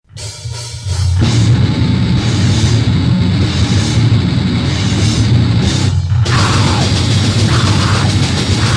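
Loud, distorted heavy music, a dense wall of sound in the vein of noise or grind punk. A thinner, quieter start gives way to the full band about a second in; a brief break comes near six seconds before it crashes back in.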